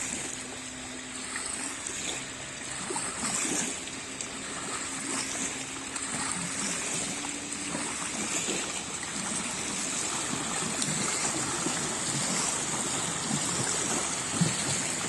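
Small waves lapping and breaking in foam on a muddy lake shore, a steady wash of water, with a faint low hum in the first half and a short thump near the end.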